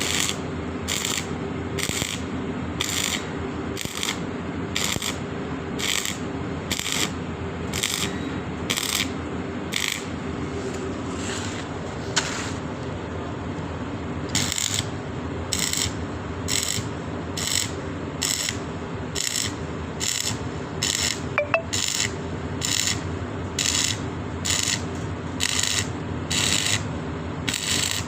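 Welding arc running with a steady noise under a hissing pulse about twice a second, as from a pulsed welding setting; the pulsing pauses briefly near the middle.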